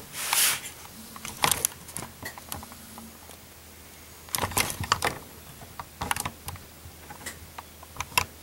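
Handling noise: scattered small clicks and knocks in short clusters, with a brief hiss at the start, as the camera is moved in close.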